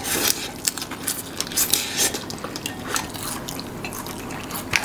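Eating sounds close to the microphone: a quick, irregular run of small clicks, clinks and crackles from food, cutlery and dishes.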